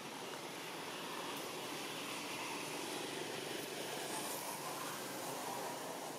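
A steady distant engine drone, swelling a little through the middle and easing off near the end.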